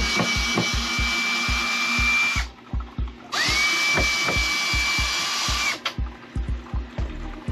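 Cordless drill/driver running twice for about two and a half seconds each, its whine rising as the motor spins up and then holding steady, backing screws out of the fridge cabinet trim. Background music with a steady beat underneath.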